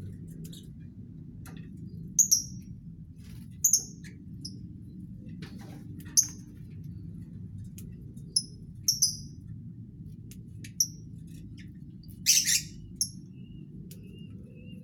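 Lovebirds giving short, sharp, high-pitched chirps at irregular intervals, about a dozen in all, the loudest cluster about twelve seconds in. A steady low hum runs underneath.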